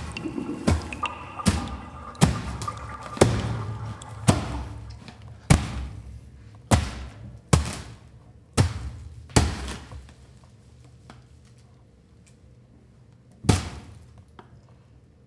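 Foley fight hits: about a dozen hard thudding impacts of punches and body blows, roughly one a second, dying away about ten seconds in, then one last hit near the end.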